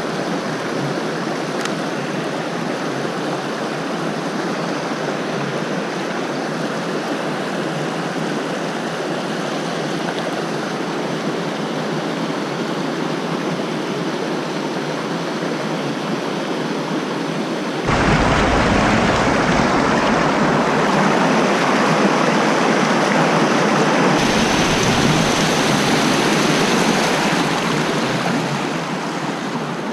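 Creek water rushing steadily. About two-thirds of the way in it turns suddenly louder, with a deep rumble added beneath it, then eases back near the end.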